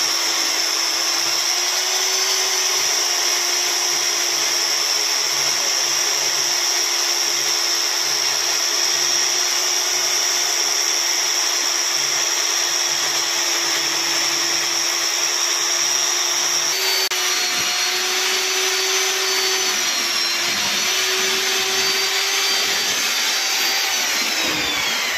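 Electric diamond core drill running steadily, its water-fed core bit grinding through a plastered brick wall: a continuous motor whine over a gritty cutting noise. About two-thirds of the way through the pitch begins to waver, and just before the end the whine falls.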